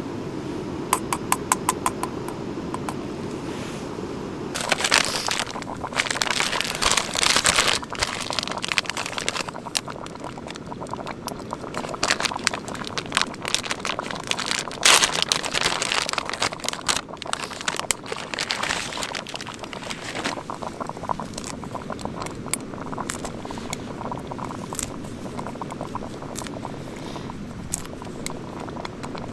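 Camp cooking gear being handled on dry leaf litter: a quick run of clicks, then rustling, scraping and crinkling that is loudest in the first half and quieter near the end.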